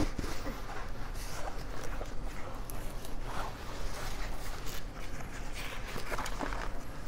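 Rustling and scuffing of a kids' plastic-and-fabric chest and spine protector vest being pulled over a child's head and settled on her shoulders, with a few small clicks and knocks.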